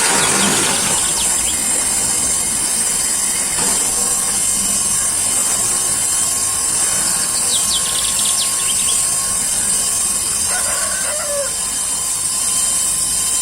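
Chickens clucking, with a few short calls about two-thirds of the way through, over a steady hiss; the foam-grating machine's motor is not running.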